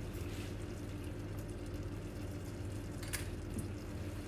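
Rhubarb compote simmering gently in an uncovered saucepan as it cooks down, over a low steady hum, with one light click about three seconds in.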